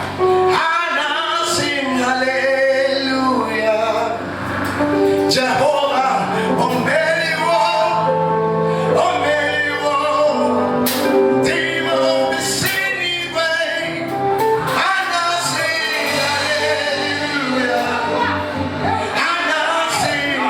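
Live gospel music: sung lines with a man's voice leading, over steady instrumental accompaniment.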